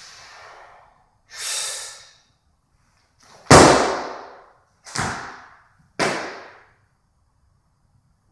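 Weightlifter's feet landing hard on a wooden platform as he drops into a split jerk with a 67 kg barbell, a loud thud with a hard exhale about three and a half seconds in. A sharp breath comes before it, and two smaller thuds follow about a second apart as his feet step back together from the split.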